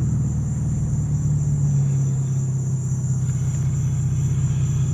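Car engine idling, a steady low hum with a fine, even pulse; its pitch dips slightly about two seconds in.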